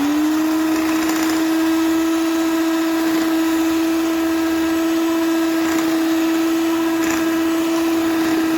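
Electric mixer motor coming up to speed and then running steadily with an even whine, its beaters mixing flour into a shortcrust dough.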